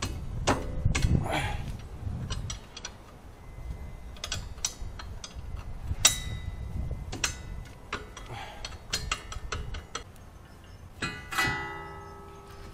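Ratchet wrench clicking and tools clinking on the rear mounting bolts of a Subaru STI front brake caliper as they are undone, in scattered bursts. Near the end, a louder metal clink rings on briefly.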